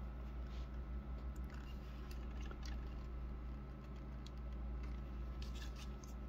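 Faint scattered clicks and taps of hard plastic being handled: a toy motorcycle figure and a clear plastic display-stand piece knocking and fitting together, more often near the end. A steady low hum runs underneath.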